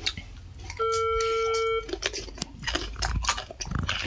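A single electronic beep lasting about a second. It is followed by crisp, irregular crunching as a slice of fresh cucumber is bitten and chewed.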